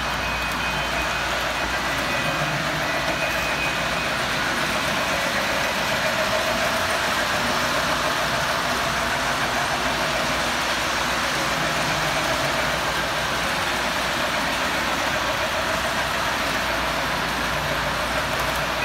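O gauge three-rail model trains running around the layout: a steady whirring and rumble of locomotive motors and wheels on the track.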